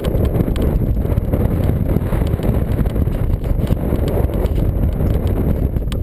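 Wind buffeting the microphone of a body-worn camera: a steady, loud low rumble.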